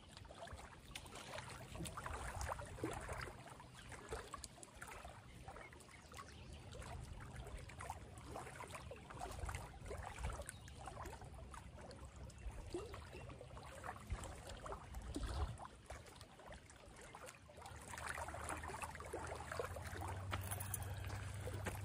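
Small waves lapping and trickling against a rocky lakeshore, faint and continuous.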